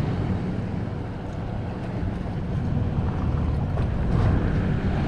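Wind buffeting the microphone over the wash of waves on the jetty rocks: a steady rumbling noise with no clear events.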